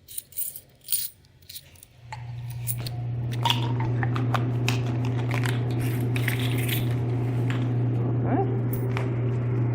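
Quarters clicking and clinking in the hand, then a steady low machine hum swells up about two seconds in and holds, with a few more coin clicks over it.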